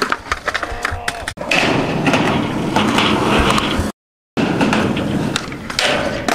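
Skateboard wheels rolling on concrete with sharp clacks of the board, the loudest about a second and a half in. The sound breaks off to silence for a moment about four seconds in, then the rolling picks up again and the board slides along a metal rail near the end.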